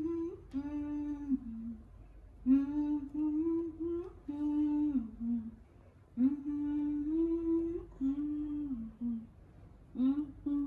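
A woman's voice humming a slow, lullaby-like tune in short phrases of a few held notes, each phrase dropping to a lower note at its end, with brief pauses between.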